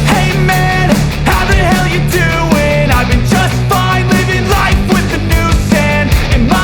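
Loud rock music with distorted guitars, a driving drum beat and a singing voice.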